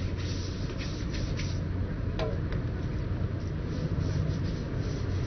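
Small single-cylinder four-stroke engine (a Predator 212cc) driving a cable tool drill rig, idling steadily. A single short metallic clink sounds about two seconds in.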